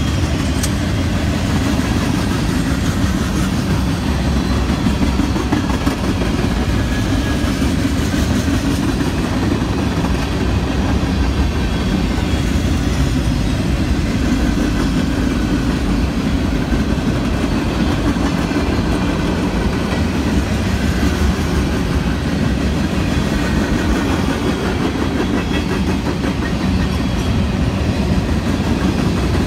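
A freight train passing close by, its cars rolling steadily along the rails in a continuous loud rumble.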